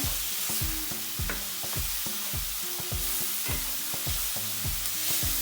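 Chopped zucchini, onion, garlic and jalapeño sizzling in hot oil in a skillet while being stirred with a wooden spoon, with a steady hiss and repeated light knocks of the spoon in the pan.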